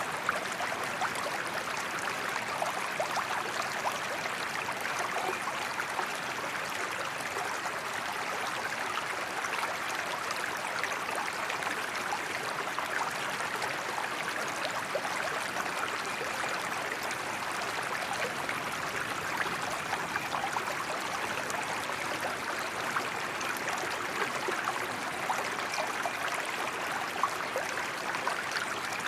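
Forest creek flowing steadily, a continuous babble of running water dotted with many small splashes and trickles.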